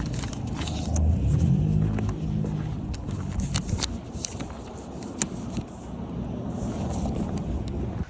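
Steady low rumble of a motor vehicle, with a short run of steady engine tone about a second in and scattered clicks and rattles.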